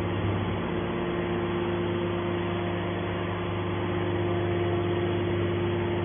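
Hydraulic power unit of a large scrap metal baler running, a steady hum with a steady whine over it, while its hydraulic cylinders swing the baler's top lid open.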